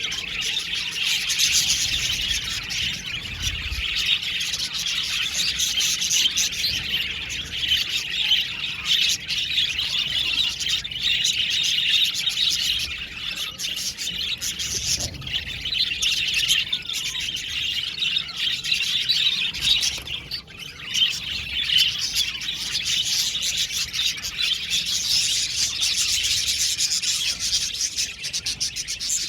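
Many budgerigars (budgies) chirping and warbling at once: a dense, steady flock chatter with a brief lull about twenty seconds in.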